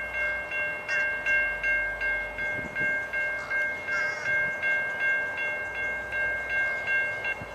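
Railroad grade crossing bell ringing, about three strikes a second, and cutting off near the end: the crossing signal shutting off once the train has cleared.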